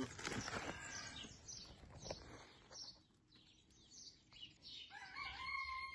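Small birds chirping faintly, with a rooster crowing in a long held call near the end.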